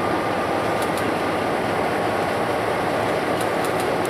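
EMD E-unit diesel locomotive idling steadily while it turns slowly on a turntable. A few faint high ticks come about a second in and again near the end.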